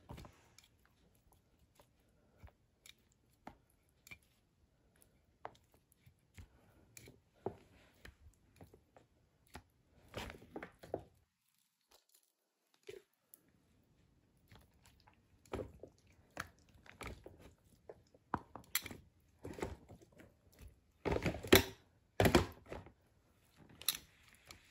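Cooked sweet potato leaves being handled with tongs and laid into a plastic container: scattered soft clicks and wet rustles, with louder bursts of handling about ten seconds in and again near the end.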